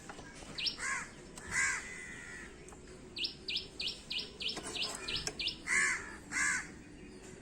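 Birds calling: a few short calls near the start and near the end, and a quick, even run of about eight high chirps in the middle.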